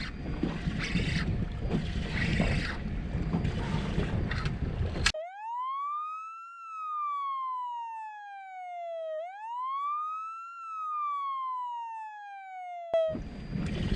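Wind and boat noise on the microphone. About five seconds in, this gives way to an added siren sound effect on an otherwise silent track: a clean tone that rises quickly, then slowly falls, twice over, before cutting off near the end.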